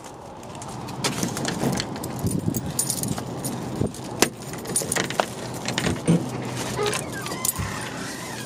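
A bunch of keys jangling and clinking, with many scattered sharp clicks, as a door is unlocked.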